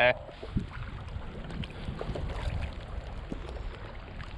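Wind buffeting the microphone in a steady low rumble, with small scattered splashes and drips of water from kayak paddling. A short loud pitched call or voice cuts off right at the start.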